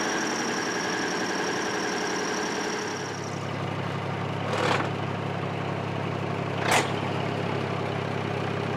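Hino V8 diesel truck engine running steadily at idle, its low hum growing stronger about three seconds in. Two brief sharp noises sound over it in the second half.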